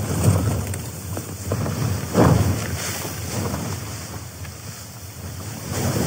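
Wind gusting against a tent, the nylon flysheet flapping and buffeting, heard from inside the tent; a strong gust comes about two seconds in and the wind picks up again near the end.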